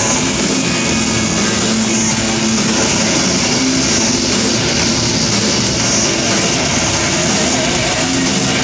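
Live symphonic metal band playing loud and steady, with electric guitars and drums, recorded from within the audience.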